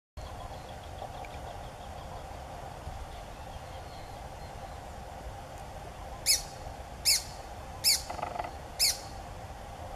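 Grey-breasted parakeet (Pyrrhura griseipectus) giving four short, sharp calls, evenly spaced under a second apart, starting about six seconds in, over a steady faint background drone.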